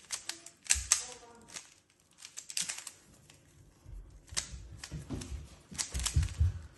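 3x3 Rubik's cube being turned quickly by hand: irregular runs of plastic clicks and clacks as its layers snap round, with a few dull low thumps of handling in the second half.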